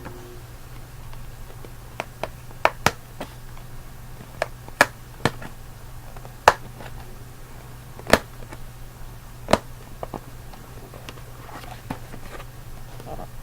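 Irregular sharp clicks and taps, about fifteen of them, spaced unevenly, over a steady low hum.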